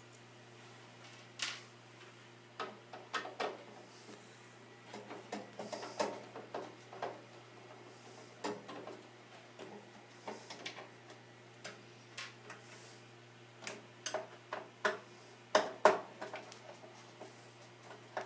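Screwdriver working on motherboard screws in a computer case: irregular small clicks, taps and knocks of metal on metal and plastic as the screws are backed out.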